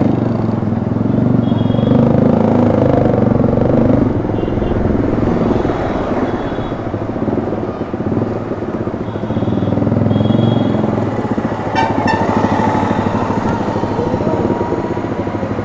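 Road vehicle running on a town street: steady engine and road noise.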